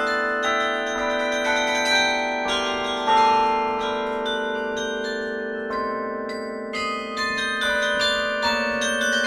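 Carillon bells playing a slow melody from the baton keyboard: struck bell notes ringing on and overlapping one another.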